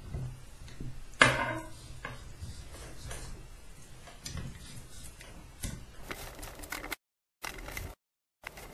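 Metal smooth rods being handled and slid through the acrylic parts of a 3D printer frame: scattered clicks, knocks and scrapes of metal on plastic, the sharpest knock about a second in. The sound cuts out briefly a few times near the end.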